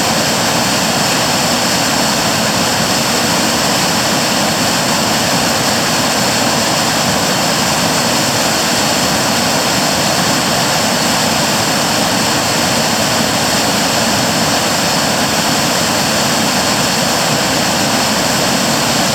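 Creek waterfall pouring: a loud, steady rush of falling water that holds one level throughout.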